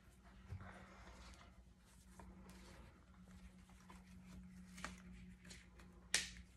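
Faint rustling and small clicks of protective gear being handled and put on (safety glasses, earmuffs and a rubber respirator mask), with a sharper click about six seconds in, over a faint steady hum.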